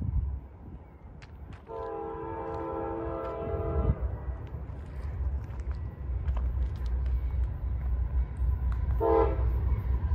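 Diesel locomotive air horn sounding for a grade crossing: one long blast of about two seconds, then a short blast near the end. Under it runs the low rumble of the approaching freight train, growing louder.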